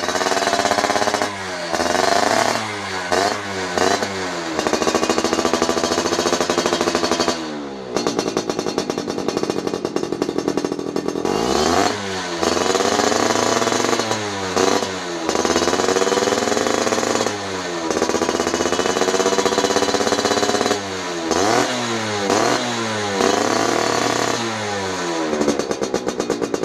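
Yamaha F1ZR two-stroke single engine revved through a CRN racing muffler, with a raspy, buzzing exhaust note. It opens with a few quick throttle blips, is held at high revs, dips briefly about seven seconds in, then rises again in repeated rev-ups, with another run of short blips near the end.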